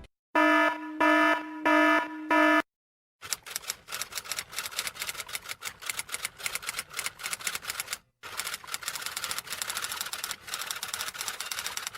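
Four short electronic beeps about half a second apart, then a long run of rapid typing clicks that pauses briefly partway through.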